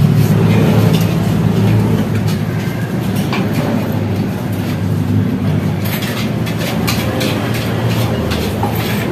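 Steady low rumble of an idling engine, loudest in the first two seconds, with a few scattered clicks and knocks.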